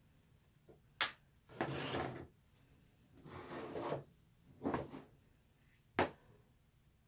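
Craft tools being handled on a wooden tabletop: a sharp knock about a second in, three scraping rubs, and another sharp knock near the end.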